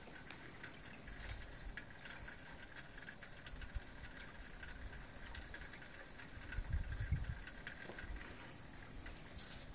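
Quiet outdoor ambience during snowfall: a faint steady high whine, scattered light ticks, and low rumbles on the microphone, the loudest about seven seconds in.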